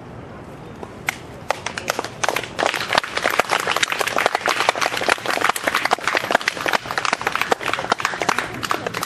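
Applause from spectators: a few claps about a second in, quickly growing into dense, steady clapping.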